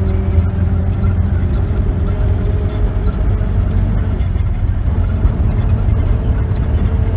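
Steady low rumble of a taxi's engine and road noise, heard from inside the cabin while driving along.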